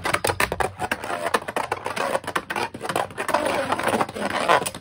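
Two Beyblade Burst spinning tops whirring and grinding in a plastic stadium, with rapid repeated clacks as they collide.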